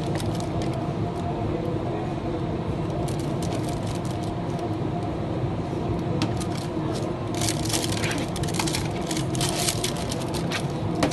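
Food sizzling and spattering in a hot wok over a steady rumble of wok burner and kitchen extraction; the crackling thickens about seven seconds in.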